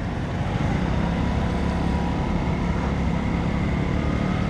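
Motorcycle engine running steadily while riding, a low even drone mixed with road noise.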